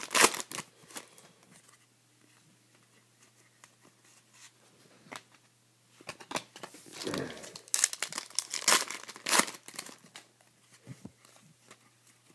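Crinkling and tearing of trading card pack wrappers being opened and handled, in two spells of crackly rustling: one just after the start, and a longer one in the second half after a few quiet seconds.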